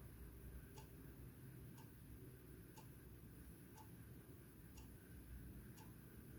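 Faint ticking of a clock, one tick a second, over near-silent room tone.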